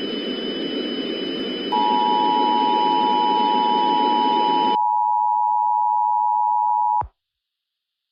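Steady electronic tone of a mock Emergency Alert System broadcast, one pitch just under 1 kHz, starting about two seconds in over a rushing noise bed with a thin high whine. The noise cuts off a little before five seconds, and the tone stops abruptly about a second before the end.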